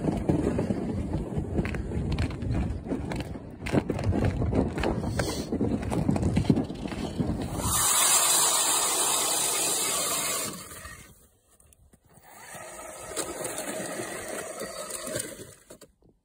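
Footsteps crunching across snowy lake ice, with wind rumbling on the microphone. Then an ice auger bores a hole through the lake ice: a steady scraping noise in two spells, with a short pause between them.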